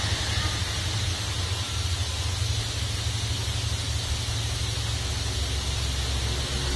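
Wind buffeting the microphone: a steady, fluttering low rumble under an even high hiss.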